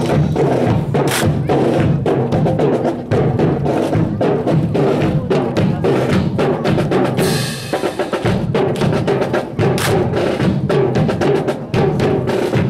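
March music with drums and percussion playing, the hits sharp and closely spaced throughout. A short burst of hiss comes about seven seconds in.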